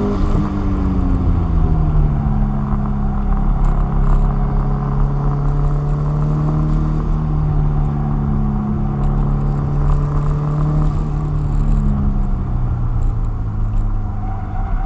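Car engine and road noise heard from inside the cabin while driving at speed. The engine note drops just after the start, holds fairly steady, then falls again about twelve seconds in, over a constant low rumble of tyres and road.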